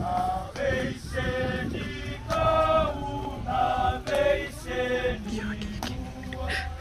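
A group of men singing together in harmony, holding each note for about half a second and moving stepwise from note to note.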